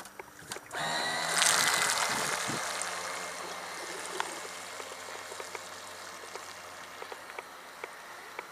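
Electric motor of a Red Dolphin RC speedboat, run on a Ni-Cd battery, starting up with a whine about a second in along with a rush of water. The sound is loudest just after it starts, then fades over the following seconds to a steady hiss.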